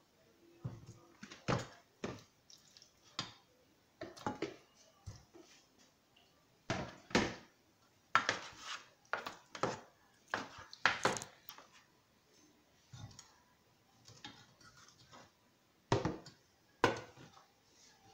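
Irregular knocks and clatters of kitchenware: a plastic spoon and a lid handled against an enamel pan of raw chicken pieces, and the pan being shifted on the counter.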